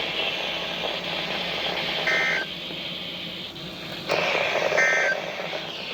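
Emergency Alert System SAME digital data tones sent over a radio broadcast: two short, buzzy bursts of paired tones, about two and a half seconds apart, over steady broadcast hiss.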